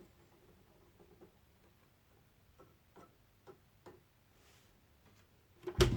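Akai AP-A201 turntable: a few faint clicks from the tonearm mechanism, then near the end a sudden thump as the stylus meets the record and recorded music with guitar starts playing.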